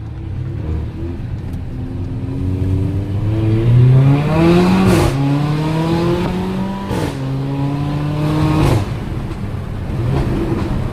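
Mercedes-AMG GLA 45's turbocharged four-cylinder accelerating hard through the gears. Its pitch climbs, then drops sharply at three quick upshifts, each marked by a short crack from the exhaust.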